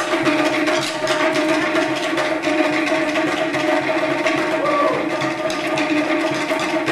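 Polynesian drumming: a fast, steady run of sharp drum strokes.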